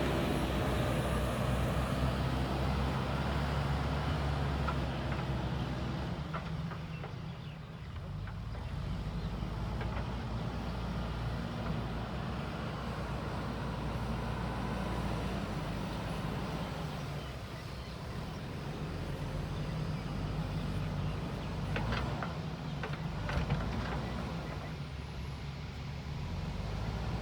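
JCB 3DX backhoe loader's diesel engine running, its level rising and falling with the load as it works, with a few sharp knocks near the end.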